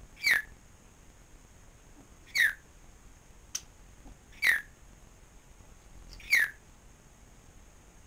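African grey parrot giving four short whistles about two seconds apart, each sliding quickly down in pitch. A faint click sounds between the second and third.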